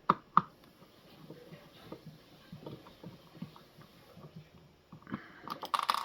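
Screwdriver on a small screw in a coffee machine's plastic housing: two sharp clicks at the start, then faint scattered clicks and scrapes, and a quick run of louder clicks near the end.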